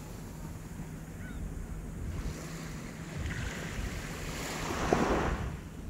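Small waves washing onto a sandy beach, with wind buffeting the microphone; one wave washes in louder near the end.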